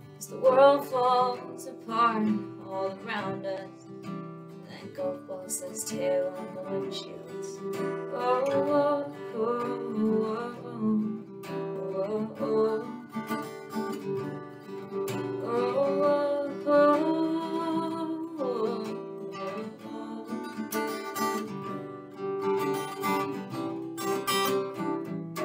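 Acoustic guitar playing sustained chords, with phrases of wordless singing rising and falling over it.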